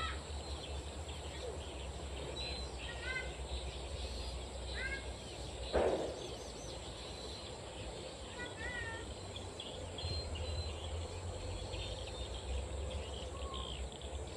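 Birds chirping in short, scattered calls over a steady outdoor background. A single short plop about six seconds in, fitting a baited fishing line landing in the river.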